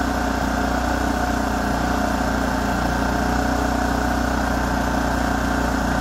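Kipor KGE3000TI inverter generator engine running steadily at raised speed, smart throttle off, holding an even pitch. It runs smoothly, the sign that the carburetor cleanout cured its no-start.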